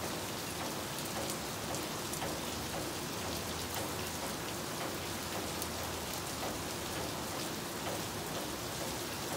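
Steady rain falling: an even hiss with scattered drips and drop ticks, water running off a wooden roof's eaves.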